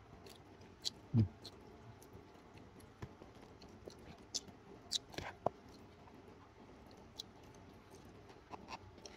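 Quiet handling noise: scattered small clicks and taps, with one soft low thump about a second in and a few sharper clicks around five seconds in.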